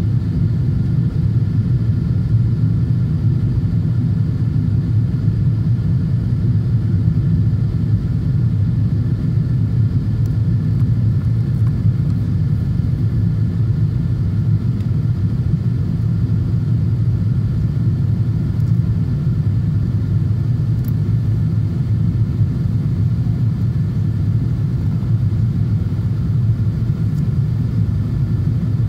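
Steady low rumble inside the cabin of a Boeing 777-200ER on approach: its General Electric GE90 engines and airflow heard from a window seat, with a few faint steady tones above the rumble.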